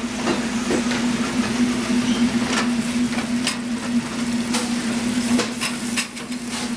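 Onions and marinara sauce sizzling in a frying pan on a gas range, with scattered clanks of the pan and utensils on the grate, over a steady low hum.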